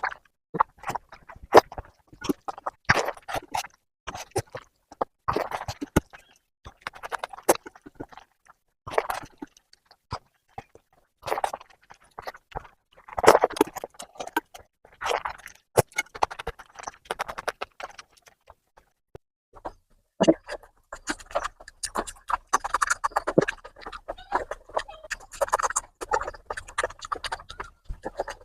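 Close-miked eating sounds: wet chewing and lip smacking of mutton fat curry with rice, in irregular bursts of clicks. From about twenty seconds in, the sounds come denser and more continuous.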